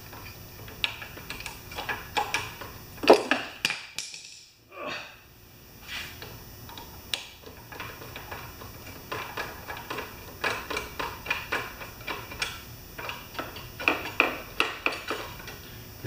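Small hand tools clicking and tapping on a lawn mower engine's carburetor linkage as the automatic choke arm is unfastened: irregular light metal clicks, with a louder clatter about three seconds in and a quicker run of clicks in the last several seconds.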